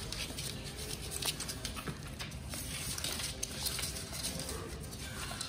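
Puppies nursing from their mother: irregular small clicks and rustling of suckling and of paws shifting on the cardboard box floor.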